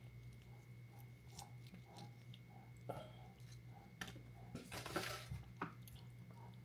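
Close-miked chewing of a bite of honey-drizzled fried hot chicken: soft wet mouth clicks and smacks, with a louder crackly crunch about five seconds in.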